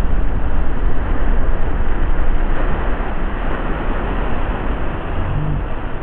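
Big storm waves crashing over a rock seawall, a loud continuous rumble of surf and spray. The audio is slowed down with the slow-motion footage, so it sounds deep and dull.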